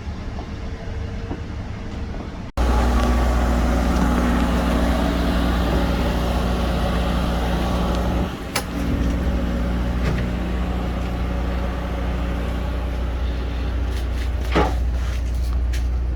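A steady low engine hum that jumps louder at an abrupt cut a couple of seconds in, with a few sharp clicks later on.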